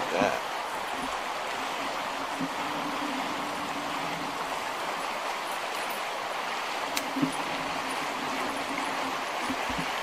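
Steady rushing of a river's flowing water, with a light knock about seven seconds in.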